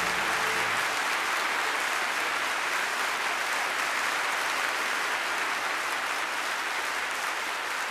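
Audience applauding steadily, fading slightly toward the end. The last held chord of the music dies away under the applause less than a second in.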